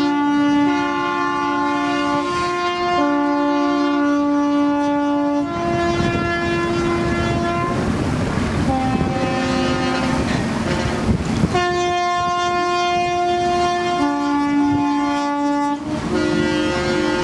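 Ships' horns of a fleet of beam trawlers blaring together as a protest: several long held tones at different pitches overlap, some cutting out and others joining. A broad rushing noise runs under them in the middle.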